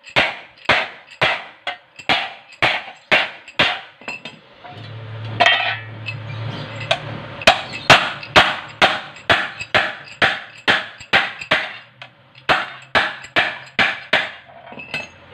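Hand hammer striking a sheet-metal plate on a wooden board, folding over its edges: a steady run of sharp metallic blows, two to three a second. The blows pause for about three seconds a third of the way in, then resume and stop shortly before the end.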